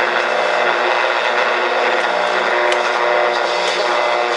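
Panasonic RC-75 clock radio's small speaker playing an AM station through heavy, steady static hiss.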